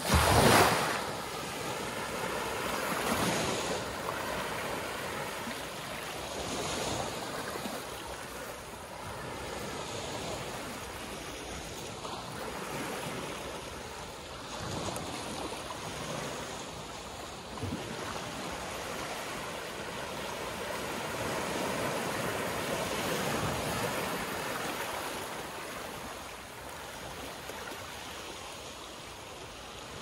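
Small ocean waves breaking and washing up a sandy shore, a steady rush of surf that swells and eases every few seconds, loudest right at the start.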